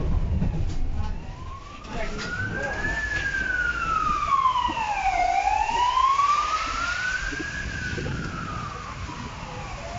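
Emergency vehicle siren wailing, its pitch slowly rising and falling in long sweeps of a few seconds each, heard through a tram's open doors over a low rumble.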